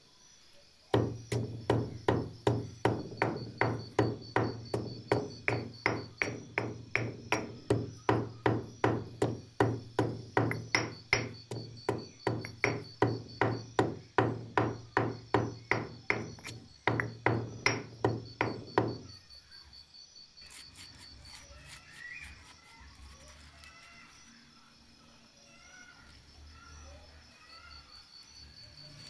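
Stone pestle pounding salt and turmeric in a stone mortar: steady, even strikes about two and a half a second, with a short break, then the pounding stops and only faint chirping is left.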